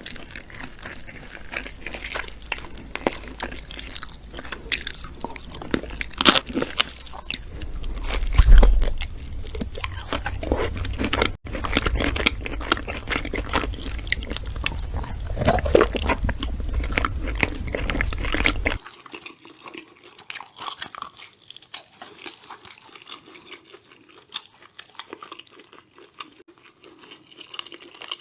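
Close-miked mouth sounds of a person biting and chewing meat: many quick clicks and smacks. The loudest stretch comes about a third of the way in, and about two-thirds through the sound suddenly becomes much quieter and sparser.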